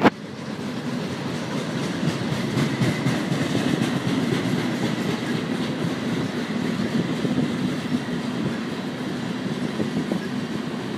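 Freight train of tank cars rolling past, with steady wheel-on-rail noise throughout. One sharp click comes at the very start.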